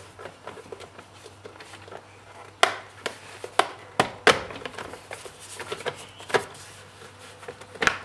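Plastic steering column covers of a 2008 Mitsubishi Lancer being pried apart and pulled off: a series of sharp clicks and snaps as the trim clips let go, amid rubbing and handling of the plastic.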